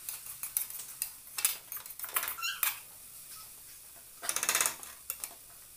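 Slotted metal spoon scraping and knocking against a metal kadai as grated carrots roasting in ghee are stirred, in irregular strokes with a quick run of scrapes about four seconds in.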